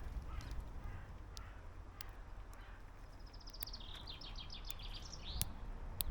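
A small wild songbird sings one short phrase about halfway through: a fast trill of repeated high notes that drops to a lower run of notes and ends in a quick flourish. A few sharp taps sound here and there over a steady low outdoor rumble.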